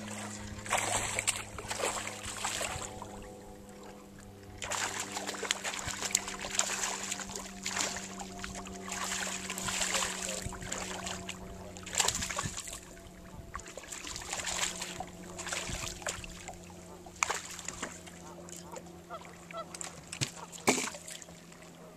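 Honking calls like geese, coming in repeated raspy bursts over a steady low hum.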